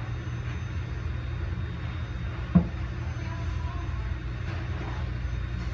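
Steady low hum with a single sharp thump about two and a half seconds in.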